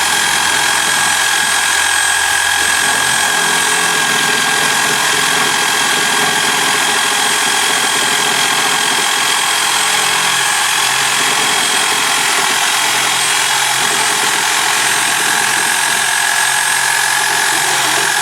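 Handheld circular saw running steadily with a high motor whine, its blade cutting along a line guided by the saw's shoe.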